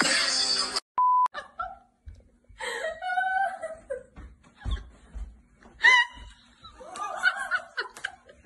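Young women laughing in several bursts. A short steady electronic beep sounds about a second in, just after a burst of music cuts off.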